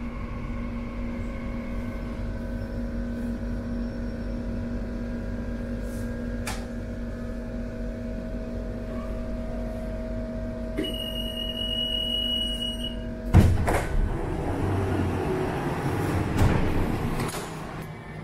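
CAF automatic metro train humming steadily from inside the car. About two-thirds of the way through, a high electronic door tone sounds for about two seconds, then the sliding doors move with a sharp thump, followed by a louder, noisier stretch.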